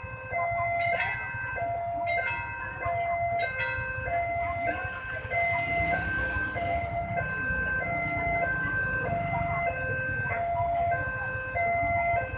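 Level-crossing warning alarm sounding: an electronic signal switching back and forth between a higher and a lower tone in a steady repeating pattern. Under it runs a low rumble, stronger in the middle, with a few sharp clicks in the first few seconds.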